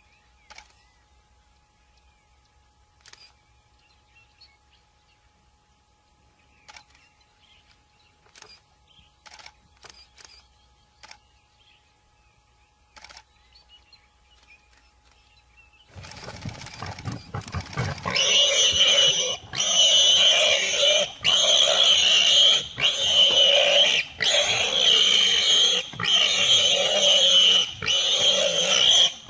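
A few faint clicks over near quiet, then about halfway in loud, harsh wild animal calls begin and go on in repeated bouts about a second long, with short breaks between them.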